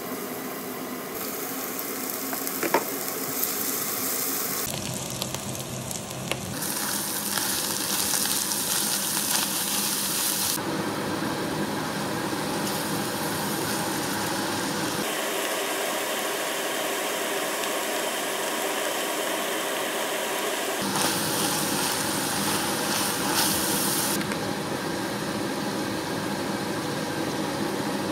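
Diced onion and garlic, then ground beef, sizzling as they fry in oil in a frying pan, with some stirring. The sizzle changes abruptly in level and tone several times.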